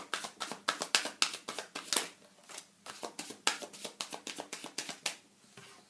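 Tarot cards being shuffled by hand: a quick run of crisp card flicks and slaps, with a brief pause partway through, dying away about five seconds in.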